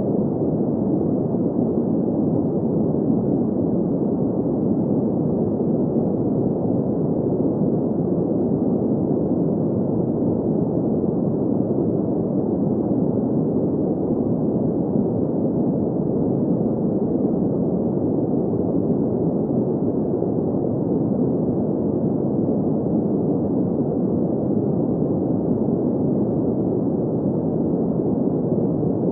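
Steady green noise for sleep: an unchanging hiss-like rush centred in the low middle range, with little treble and no sounds standing out.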